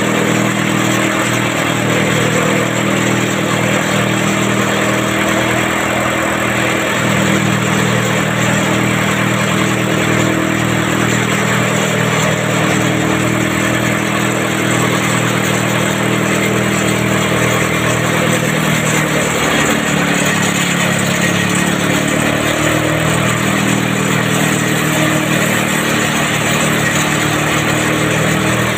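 Kutti machine (straw chopper) running at full speed. A steady engine drone sits under the continuous rushing hiss of chopped straw being blown out of its spout.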